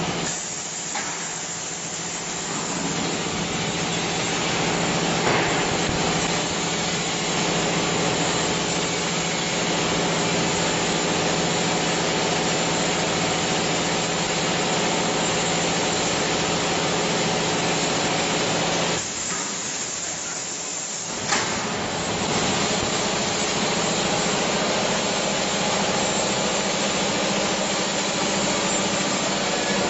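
Production-line conveyor machinery running: a steady hum over a hiss. The hum dies away for about two seconds two-thirds of the way through, then comes back in with a sharp click.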